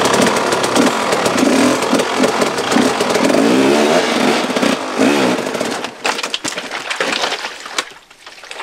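Enduro dirt bike engine revving hard, its pitch rising and falling several times, then dropping away after about five seconds. Scattered knocks and scrapes follow near the end.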